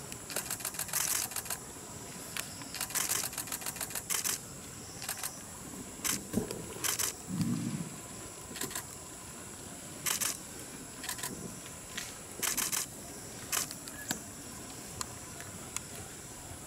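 Repeated bursts of rapid clicking, each about a second long, over a faint steady high-pitched hum, with one short low sound about seven and a half seconds in.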